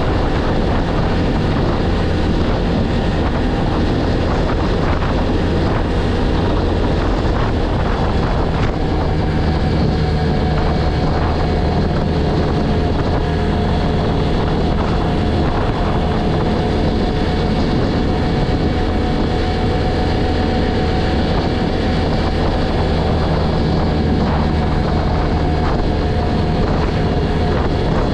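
ODES 800 quad's engine running steadily under way at an even road speed, with wind noise on the microphone.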